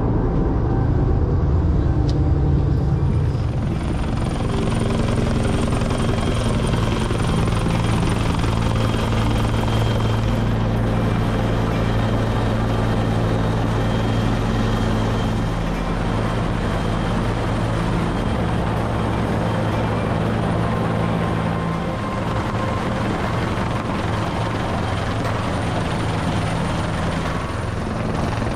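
Rescue helicopter hovering low overhead, its rotor and engine making a loud, steady drone that holds through the whole stretch.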